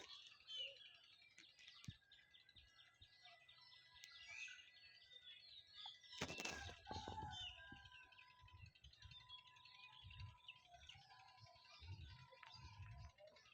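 Small birds chirping and twittering faintly in many short, quick calls. A short thump about six seconds in is the loudest sound.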